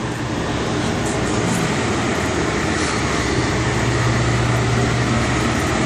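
Semi truck's diesel engine idling steadily, with a low hum that grows stronger about four seconds in.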